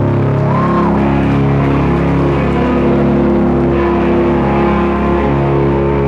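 Live rock band playing loud, electric guitars and bass holding sustained notes over the drums.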